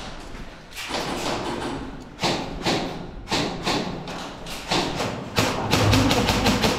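A run of irregular thuds and knocks from airsoft players moving through rooms in a building, their footsteps and gear bumping. The knocks come faster and louder near the end.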